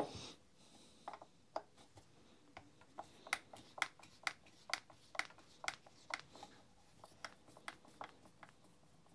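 Hand screwdriver turning out a small screw on an impact driver's gearbox housing: a soft knock at the start, then a run of faint sharp clicks, about two a second, as the driver is worked round.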